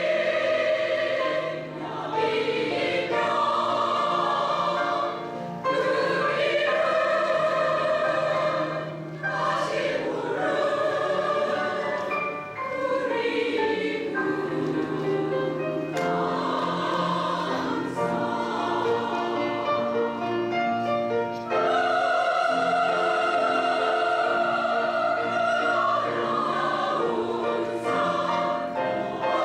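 Women's choir singing a Korean choral song in sustained phrases, with short breaths between phrases every few seconds.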